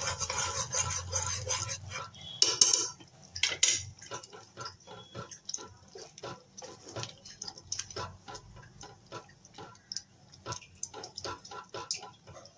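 Spatula stirring thick spinach and lentil dal in a nonstick kadai: wet, squelching strokes scraping against the pan, a few a second, with two louder knocks against the pan a few seconds in.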